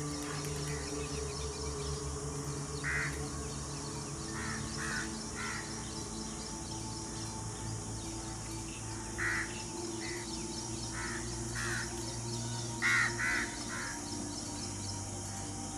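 Short, harsh animal calls, one or a few at a time every couple of seconds, the loudest a quick run of three near the end, over a steady low drone.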